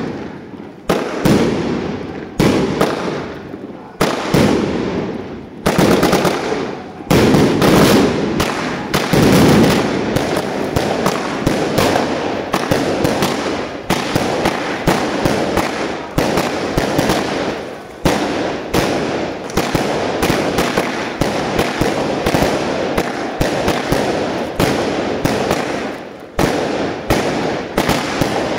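Box-fired multi-shot fireworks (cakes) shooting shells into the sky, each shot a sharp bang with a fading echo. The bangs start about a second or two apart and from about ten seconds in quicken into a dense, rapid, irregular barrage.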